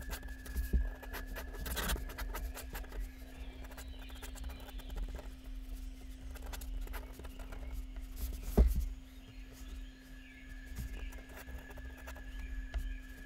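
Pen tip scratching across paper in quick sketching strokes, with one sharp knock about two-thirds of the way through. A steady electrical hum runs underneath.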